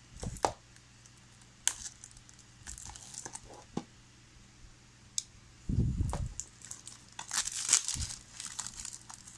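Plastic shrink wrap being torn open and crinkled off a Blu-ray case, with knocks from handling the case and a low thump about six seconds in; the crinkling is densest in the last couple of seconds.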